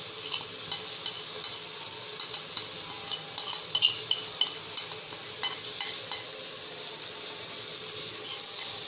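Stuffed green chilies sizzling steadily in hot oil in a metal pan. A spoon clicks and scrapes against the pan a few times in the middle as the spice mix is stirred in.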